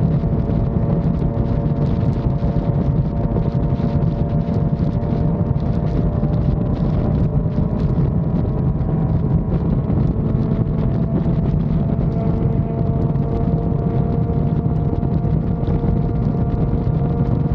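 Yamaha FZ6 Fazer 600's inline-four engine running steadily at cruise, with wind rushing over the microphone. The engine's pitch creeps up slightly in the second half.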